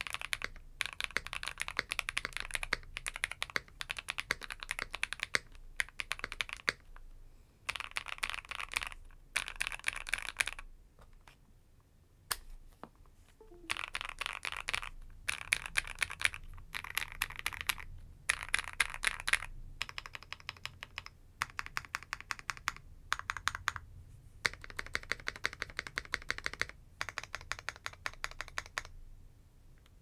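Fast typing in bursts on a CIY Gas67 mechanical keyboard with lubed AKKO Wine Red switches, PBT keycaps and foam and tempest mods. The keystrokes are soft and creamy with a little pop. The typing comes in runs of a few seconds split by short pauses, the longest about 11 seconds in.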